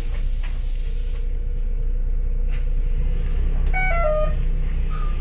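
Interior of a city bus: the engine runs with a steady low rumble that grows a little louder about three seconds in. Near the four-second mark three short falling tones sound over it.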